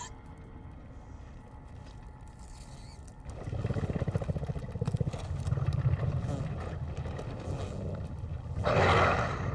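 Sound-design effects: a faint low rumble, then from about three seconds in a much louder low, rapidly throbbing rumble, and a loud short hissing burst near the end.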